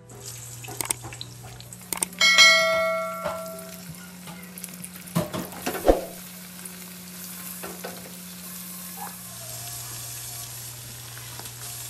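Tuna and lentil kebabs sizzling steadily as they fry in hot oil in a pan. About two seconds in, a metal clink rings for about a second, and a couple of sharp knocks follow around five to six seconds in.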